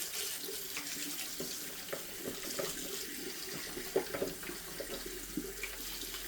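Tap water running into a sink while a plastic washing-machine detergent drawer is scrubbed clean under it, with scattered light knocks as the parts are handled.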